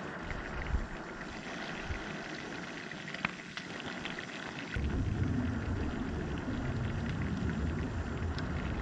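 Cutthroat trout and bacon frying in a pan on a camp stove: a steady crackling sizzle. A low rumble joins it about five seconds in.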